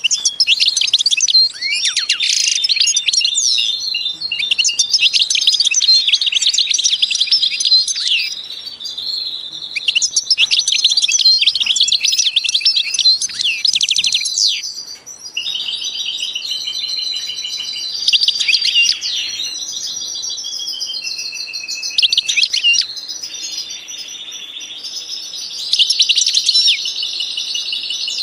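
Birds singing and chirping loudly: bursts of rapid high chirps and trills alternating with long, steady whistled notes.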